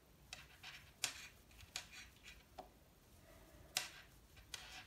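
Faint handling sounds of a metal crochet hook working yarn through stitches: irregular small clicks and soft rustling, the sharpest click about three-quarters of the way through.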